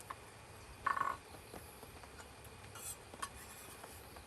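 A frog croaks once, a short pitched call about a second in. A few light clicks and a brief high hiss come near the start and around three seconds in.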